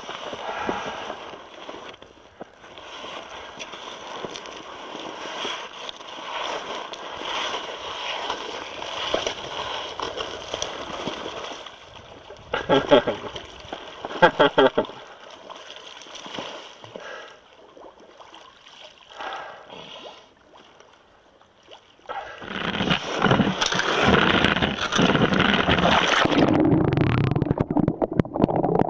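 A spearfisher in a wetsuit crawls over snow and slushy edge ice into a winter river, with scraping and sloshing and a quick run of sharp splashes about halfway. From a little past twenty seconds, a submerged camera picks up loud, low gurgling and rushing of water against its housing.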